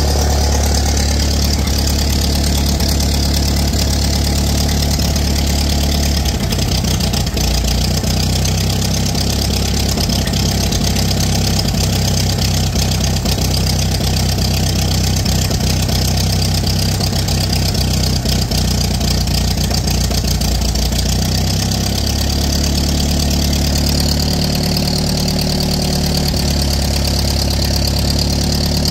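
Ferguson TEA20 tractor's four-cylinder petrol engine running steadily at idle, its note shifting about six seconds in and again around twenty-two seconds.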